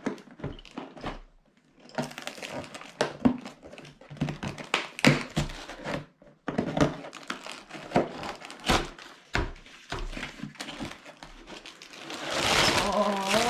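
Cardboard Lego set box being opened by hand: irregular taps, knocks and rustling as the flaps and the contents are handled, with a short pause about six seconds in. A louder stretch of rustling comes near the end.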